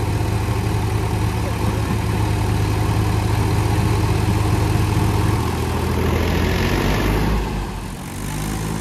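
Diesel tractor engines running hard as one tractor tows another out of deep mud. About seven to eight seconds in, the engine sound shifts and briefly drops.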